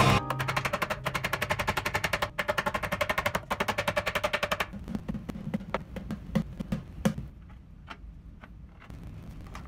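Wooden cabinet parts clicking rapidly and evenly, about ten clicks a second, as the panels are handled and fitted. After about four and a half seconds this gives way to a few scattered taps and dull knocks that die away.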